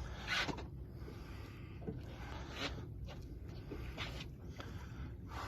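Fishing reel's drag giving line in several short zipping bursts as a hooked fish pulls against a tight drag, over a low steady rumble.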